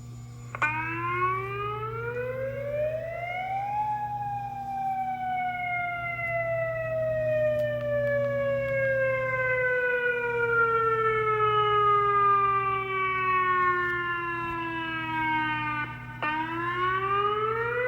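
Tornado warning siren winding up to its peak pitch over about three seconds, then slowly winding down over about twelve seconds, and starting to wind up again near the end.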